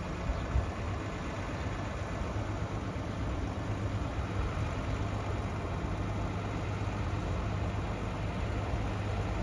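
Ford Cargo 0813 truck's diesel engine idling steadily, a low even hum.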